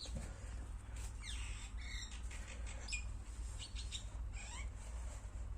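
Small birds chirping a few times in short, high calls between about one and four and a half seconds in, over a steady low electrical hum.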